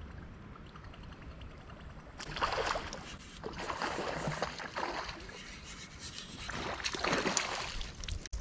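A hooked bass splashing and thrashing at the water's surface in three bursts as it is fought on the rod and lifted toward the boat.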